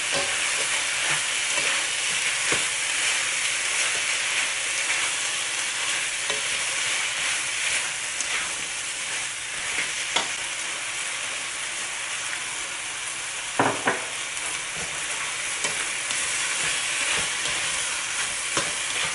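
Shrimp and vegetables sizzling in a hot wok as they are stir-fried, a steady hiss with a spatula scraping and clacking against the pan. The sharpest clacks come about ten seconds in and twice near fourteen seconds.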